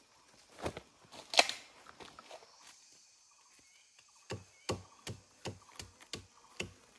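Feathers being plucked by hand from a dead bird: a string of short, sharp snaps, the loudest about a second and a half in, then a quicker run of snaps near the end.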